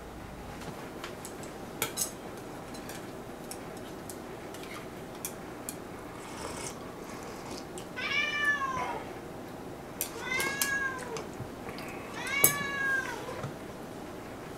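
A domestic cat meowing three times, about two seconds apart, each meow rising and then falling in pitch. A few light clinks of tableware come earlier.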